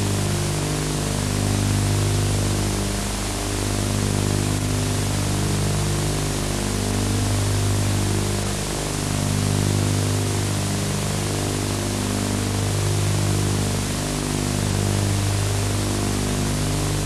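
Steady hiss, the noise of an old video-tape transfer, over slow background music of long held low notes that change every second or two.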